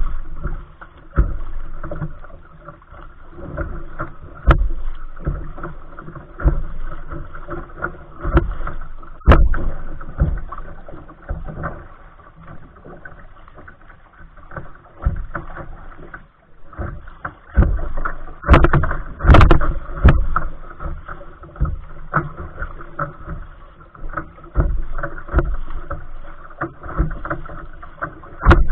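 Kayak paddle strokes splashing into choppy water, with waves slapping the hull, a splash every second or two.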